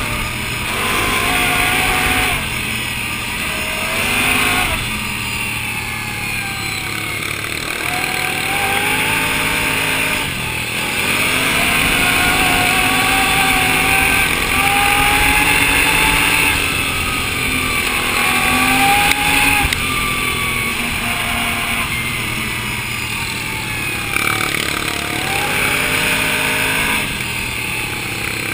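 Can-Am ATV engine running under way on a dirt trail, its revs rising and falling again and again as the rider accelerates and eases off.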